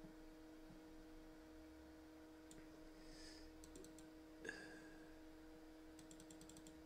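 Faint computer mouse clicks against a low steady electrical hum: a few single clicks, one slightly louder about four and a half seconds in, and a quick run of clicks near the end.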